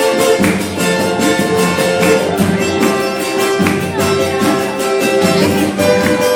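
Instrumental samba music: a fast, busy percussion beat under held chords and plucked strings.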